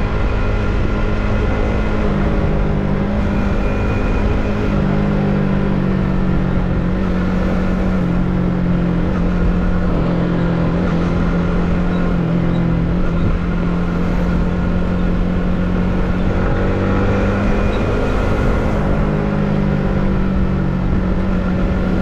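Yamaha MT15's 155 cc single-cylinder engine running at a fairly steady cruising speed. Its pitch shifts a little in small steps with the throttle, over a steady low rush from riding.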